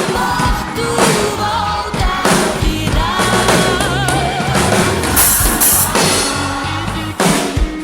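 Drum kit playing kick, snare and cymbals along to a Brazilian worship song with a female lead vocal holding long notes, and a cymbal crash about five seconds in.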